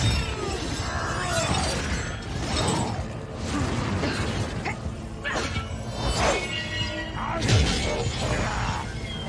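Fight-scene sound effects of magic energy blasts and shattering crashes, several sudden hits following one another, over a music score.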